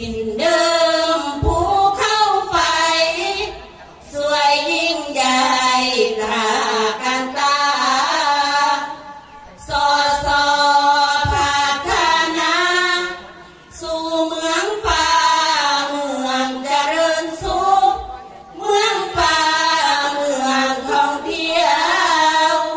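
A women's sarabhanya group singing Thai Buddhist devotional verse together into microphones, in long sung phrases broken by brief pauses for breath every four to five seconds.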